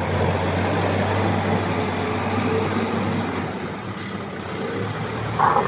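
A motor vehicle's engine running steadily, a low hum under a wash of noise, with a short sharper sound near the end.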